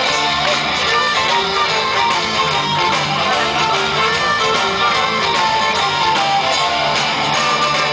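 Folk-metal band playing live, an instrumental passage: distorted electric guitars and drums under a flute and violin melody.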